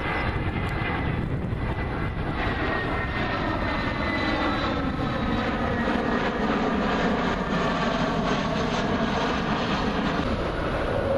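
Airbus A320-family airliner's twin jet engines passing low overhead on landing approach with gear down: a steady rumble and whine whose whining tones slide slowly down in pitch as it goes over.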